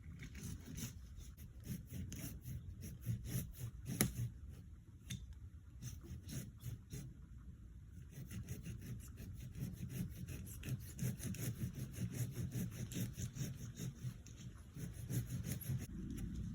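Silky hand saw cutting through goat willow wood in quick back-and-forth strokes, pausing briefly about seven seconds in and then carrying on at a faster pace.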